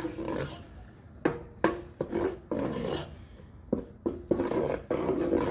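Wooden spoon stirring thick, sticky melted marshmallow in a nonstick pot: scraping and rubbing along the pot, with several sharp knocks of the spoon against the pot.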